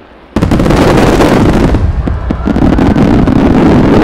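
Barrage of large aerial firework shells bursting together: a sudden wall of booms and crackling starts about a third of a second in and carries on as a dense, continuous rumble, easing briefly around the middle.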